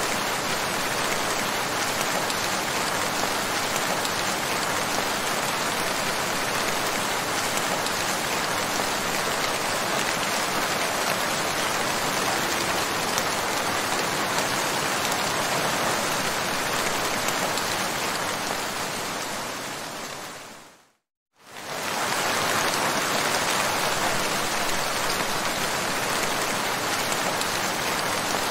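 Steady rain falling, a dense even hiss of drops. About three-quarters of the way through it fades out to silence for a moment and then fades back in.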